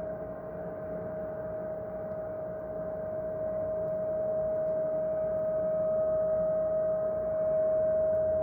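A steady, unbroken tone at one pitch over a low hissing rumble, growing slightly louder toward the end: a persistent nuisance hum of unknown origin that goes on every evening throughout the night.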